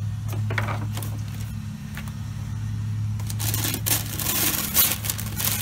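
Brown packing paper crinkling and rustling as it is handled inside a wooden crate, starting about three seconds in, after a few light wooden knocks. A steady low hum runs underneath.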